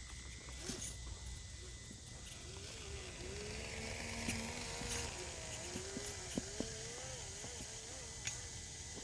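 Small electric motor of a Traxxas TRX-4M RC crawler whining, its pitch rising and falling with the throttle as it creeps along a log, with scattered clicks from the tyres and chassis on the bark.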